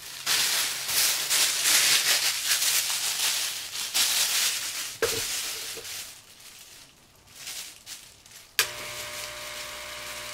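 Plastic vaporizer balloon bag crinkling loudly as it is handled, with a sharp click about five seconds in. About eight and a half seconds in, a Volcano Classic vaporizer's air pump switches on with a steady hum, inflating the bag.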